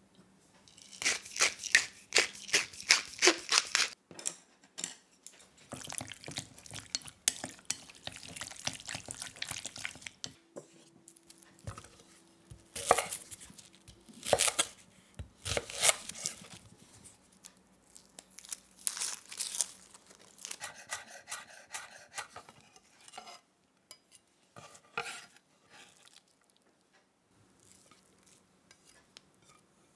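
A wooden pepper mill grinding with a quick run of clicks, about five a second, followed by a chef's knife cutting shallots on a wooden chopping board: sharp knocks of the blade on the board, with rustling and tearing of the papery shallot skins.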